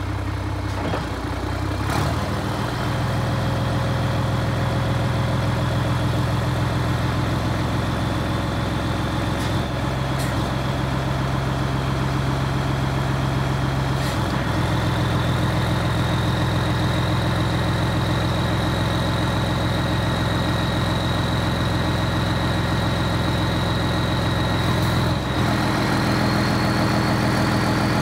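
Scania P92H truck's diesel engine running steadily while the hydraulic hook arm lifts. A faint high whine climbs slowly in pitch throughout. The engine note shifts slightly a few times, each shift marked by a sharp click.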